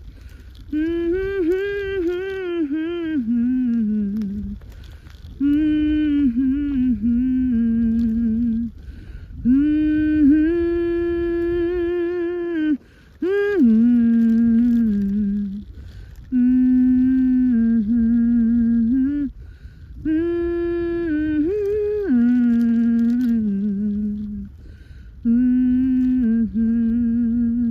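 A person humming a tune in phrases of a few seconds, the notes stepping up and down, with short pauses between phrases. A steady low rumble runs underneath.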